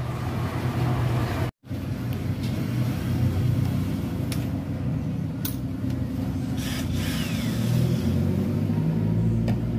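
Steady low rumbling hum, with a few light clicks and knocks as the plastic cabinet of a barrel-shaped Bluetooth speaker is handled and turned over.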